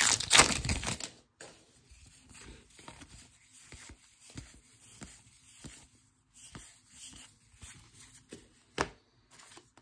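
Baseball card pack wrapper crinkling and tearing open for about the first second, then faint taps and slides of cards being handled, with one sharp click near the end.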